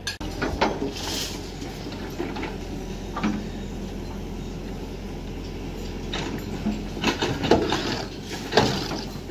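Heavy construction machinery running steadily, with scattered metal clanks, and a rush of soil pouring out of a hanging steel bucket near the end.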